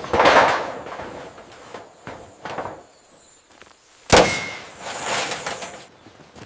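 A sharp, loud metallic clang about four seconds in, with a brief ring after it, among several shorter knocks and rushing, hiss-like bursts near the start and about five seconds in.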